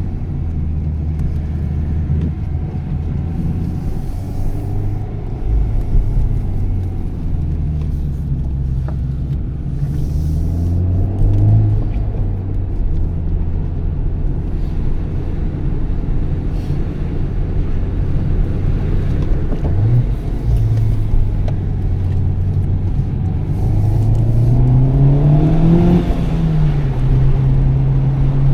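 A Honda Civic Type R FK8's 2.0-litre turbocharged four-cylinder engine at moderate revs under light load. Its pitch rises gently about ten seconds in, climbs again for a few seconds near the end, then drops back suddenly as a gear is changed.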